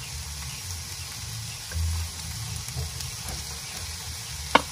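Sliced bell pepper, onion and garlic sizzling in oil in a frying pan over a wood fire, a steady hiss as they sauté. Grated carrot is tipped into the pan near the end, and there is one sharp knock just before it ends.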